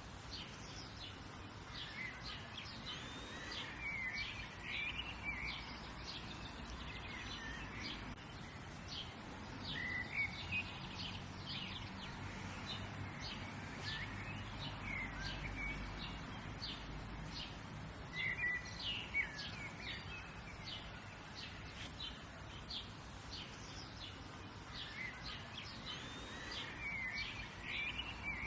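Birds chirping and singing: many short high chirps throughout, with a warbling song phrase coming back every several seconds, over a steady background hiss.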